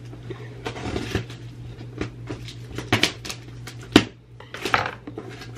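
Scissors cutting through packing tape to open a cardboard box, with short scraping and rustling and a few sharp clicks, the loudest about four seconds in.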